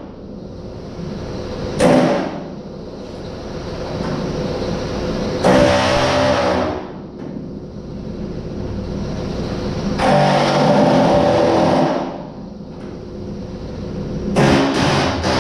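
A power tool worked on a car body's rear quarter panel in four short bursts, each half a second to two seconds long, over a steady shop hum.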